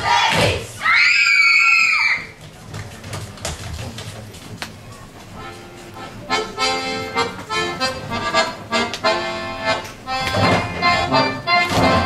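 Accordion-led folk dance music starts about six seconds in. It follows a loud, high-pitched shout about a second in and a quieter stretch of scattered steps and knocks. Sharp stamps of dancers' shoes sound over the music near the end.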